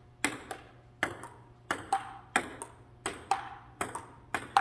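Table tennis rally: the ball clicking off the table and the paddles in a steady back-and-forth, about three hits a second, some with a short ring.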